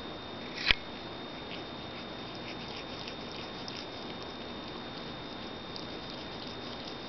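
Siamese cat lapping water from a glass bowl: runs of faint, quick ticks. There is one sharp knock about half a second in, the loudest sound.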